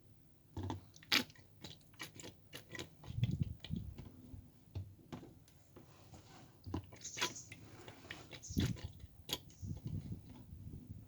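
Irregular small clicks, taps and crackles of handling work while the cells of a lead-acid battery are topped up with distilled water.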